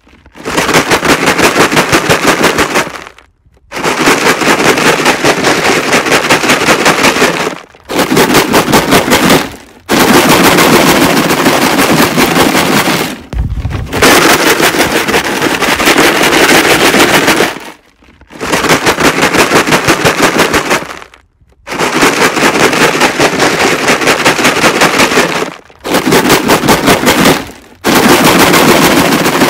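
Jug of rocks shaken hard: a loud, fast rattle of stones inside the plastic jug, coming in repeated bouts of a few seconds each with short pauses between them.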